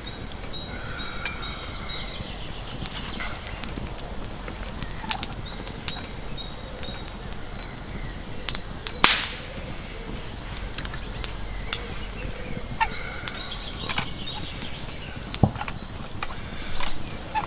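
Woodland songbird singing repeated phrases of quick high chirping notes, with scattered sharp clicks and snaps throughout and a brief louder rush of noise about nine seconds in.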